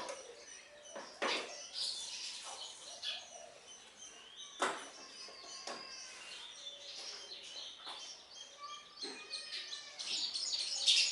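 House sparrows chirping in many short, sharp notes, growing busier and louder near the end.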